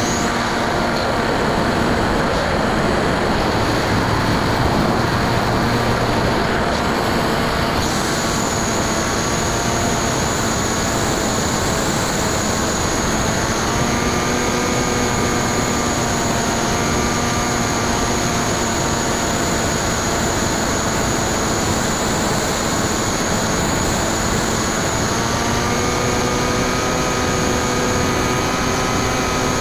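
Brushless electric motor and 9x6 propeller of a Bixler 2 foam RC plane running steadily in flight, heard from a camera on the airframe: a continuous buzzing drone under wind noise. Its pitch steps up a little now and then with throttle, and a thin high whine joins about eight seconds in.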